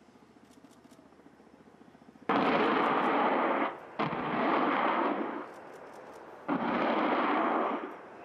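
Ka-52 attack helicopter firing air-to-ground rockets in three salvos, each a sudden, loud, rushing blast about a second and a half long. The first comes about two seconds in and the others follow close behind.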